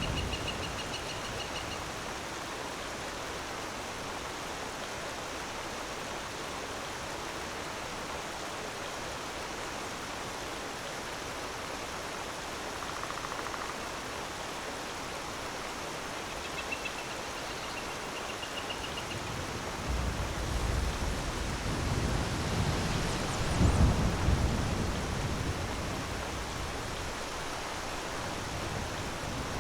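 Steady rushing of falling water from a waterfall. A low rumble like distant thunder swells about two-thirds of the way in. A short high trill sounds twice, once at the start and once past the middle.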